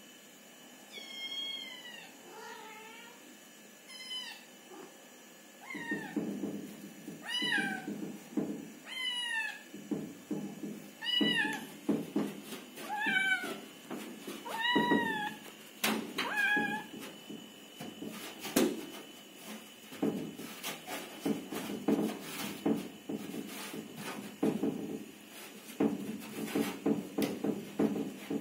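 A cat meowing again and again: short, high calls that fall in pitch, about one every second or two, ending a little past halfway. From about six seconds in there is scuffling with light thumps and clicks, which carries on after the meowing stops.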